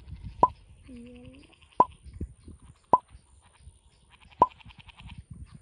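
Frogs calling at the water: four loud, sharp plopping notes about every second and a half, with quieter rapid trills and a short croak between them. A thin, steady high tone runs underneath.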